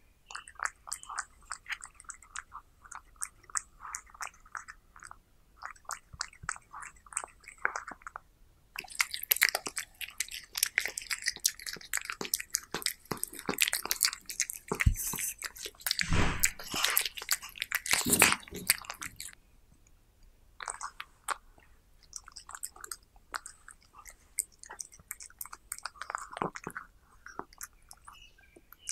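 A long-haired cat chewing raw meat close to the microphone: quick, irregular wet clicks of chewing, with a louder, denser stretch of chewing through the middle.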